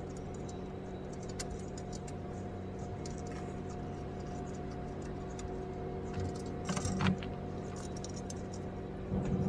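Linear-guide carriage blocks slid by hand along steel rails, their ball bearings giving a light clicking rattle, with a louder cluster of clicks about seven seconds in. A steady hum runs underneath.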